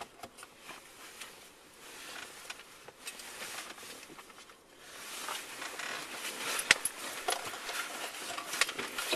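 Rustling and handling noises, getting louder about halfway through, with a few sharp clicks and knocks near the end.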